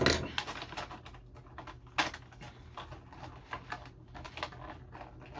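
Clear plastic blister packaging being handled and pried at: a sharp crack at the start and another about two seconds in, with many small clicks and crinkles in between.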